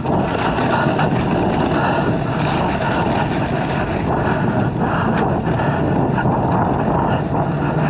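Dirt bike engine running steadily while riding, with wind noise on the microphone.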